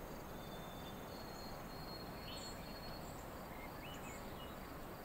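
Quiet woodland pond ambience: a steady low hiss with faint, scattered high-pitched chirps and a thin, high buzzing note that lasts about two seconds starting a second in.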